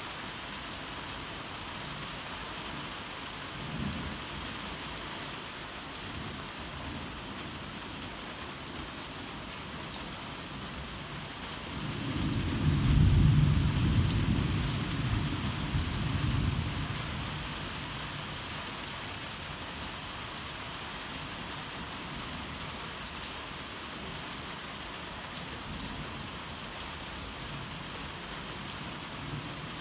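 Steady heavy rain falling, with a low rumble of thunder about twelve seconds in that swells, peaks and dies away over about five seconds.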